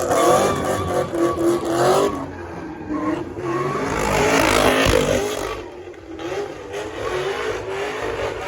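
Car engine revving hard and held at high revs while spinning donuts, its pitch wavering up and down, with a rush of tire noise swelling about four seconds in.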